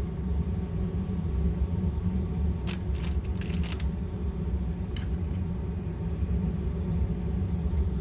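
Steady low rumble, with a few small metallic clicks and taps over it: a cluster about three seconds in and a single click about five seconds in, as a tool works a small cross pin out of a Beretta 71 pistol frame.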